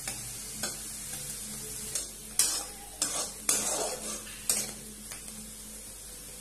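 Dried bamboo shoots frying in hot mustard oil in a metal kadhai, with a steady sizzle. A metal spatula scrapes across the pan in about six sharp strokes between two and five seconds in.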